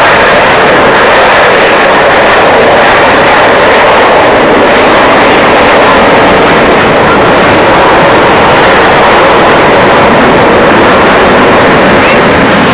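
Four CFM56 jet engines of an Airbus A340-300 airliner running as it rolls along the runway: a loud, steady jet noise.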